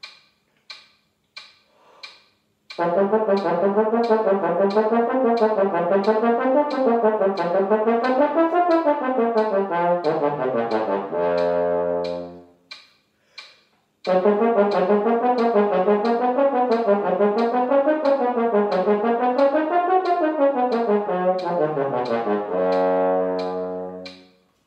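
French horn playing fast, articulated major-scale patterns that zigzag up and down from C, in two runs a few seconds long, each ending on a held low note. A metronome ticks at 90 beats a minute throughout and is heard alone for the first few seconds and in the short gap between the runs.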